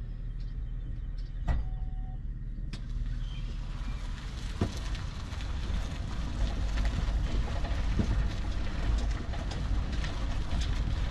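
Wind rumbling on the camera's microphone, growing stronger in the second half, with a few short knocks.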